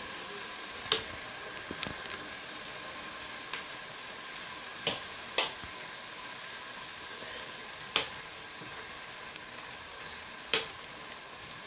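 A metal spoon or fork clicking and knocking against a stainless steel cooking pot while food is stirred in it: several sharp single clicks a second or more apart, the loudest about halfway through. Behind them is a steady hiss.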